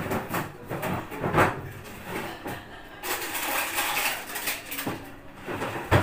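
Kitchen clatter of dishes and utensils being handled: a string of clinks and knocks, then a steadier noise lasting over a second about three seconds in.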